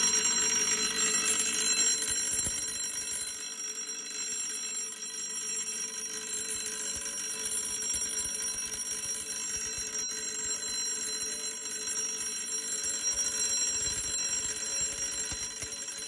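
Electric vibrating doorbell ringing continuously: an electromagnet drives a metal hammer rapidly against a metal gong, giving a steady, unbroken ring full of high tones.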